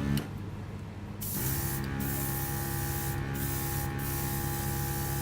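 Airbrush spraying paint with a steady hiss, starting about a second in and breaking off briefly a few times as the trigger is let go. Under it the mini compressor's motor hums, louder once the air starts flowing.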